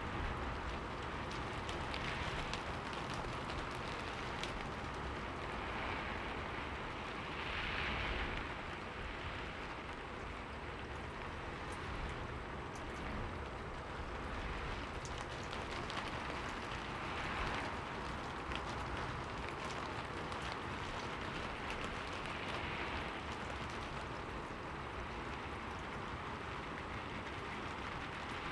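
Steady rain on a window pane: an even hiss with scattered drop ticks, swelling briefly now and then, most strongly about eight seconds in.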